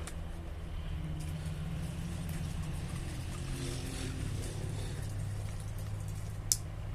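A motor or engine running steadily with a low hum, its pitch settling a little lower about midway, and one sharp click near the end.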